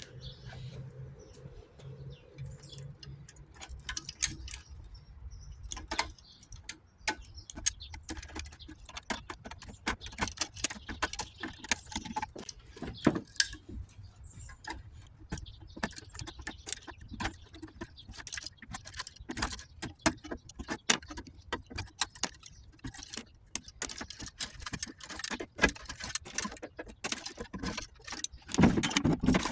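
Hand tools cutting and pulling wire out of a battery charger's chassis: a long run of irregular sharp clicks, snips and small metallic rattles.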